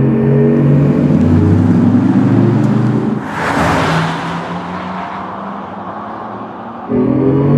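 Porsche Macan 4S driving at speed with a pitched drive hum that rises. A rushing whoosh comes about three seconds in as the car goes past. The sound then drops to a quieter low hum and jumps back louder and rising near the end.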